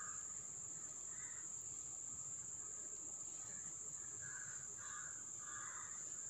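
Quiet background with a steady high-pitched whine and a few faint, short distant bird calls.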